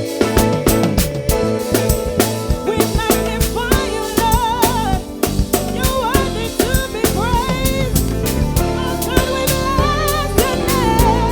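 Gospel praise-and-worship song: a singer's wavering lead over a drum kit with sharp snare hits on a steady beat and a heavy bass line.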